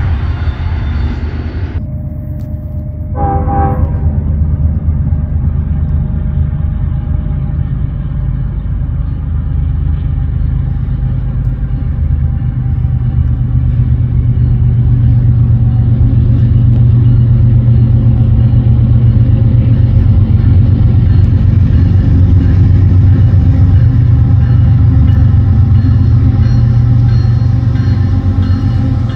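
Union Pacific diesel freight locomotives approaching, their engines giving a steady low rumble that grows louder, with a short horn toot about three seconds in. At the start, a double-stack container train rolls past.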